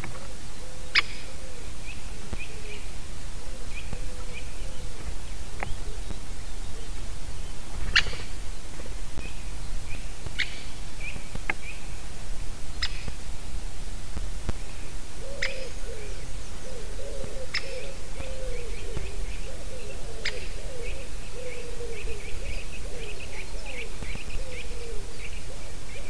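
A woodpecker calling near the nest: about nine sharp, short call notes at irregular intervals, each falling quickly in pitch. Under them another bird keeps up a softer, wavering chatter that grows louder in the second half, over a steady low hiss.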